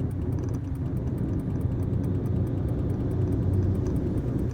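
Truck engine running under way with road noise, a steady low drone.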